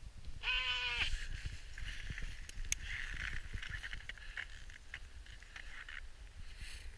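Someone moving through snow: scraping and crunching of snow with scattered clicks, over a low rumble from handling of the camera. A short high-pitched vocal sound comes about half a second in.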